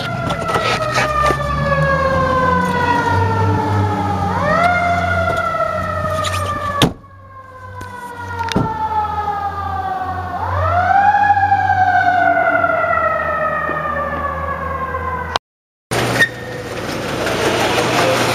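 Fire engine siren wailing: each cycle climbs quickly and then falls slowly over about five seconds, two full cycles, over the truck's low engine hum. The sound cuts out briefly about fifteen seconds in, after which only engine and road noise remain.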